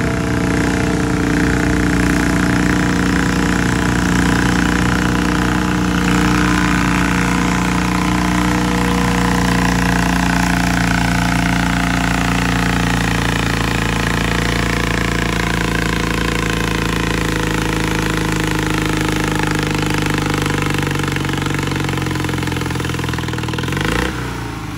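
Modified garden pulling tractor's engine running hard under load as it drags a weight-transfer sled, its pitch slowly sinking as the load builds. Near the end the engine drops off.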